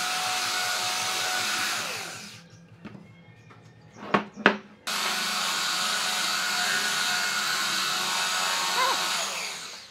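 Handheld electric belt sander running on a wooden beam, winding down about two seconds in. Two sharp knocks follow as the timber is turned over. The sander then starts abruptly and runs steadily again before winding down near the end.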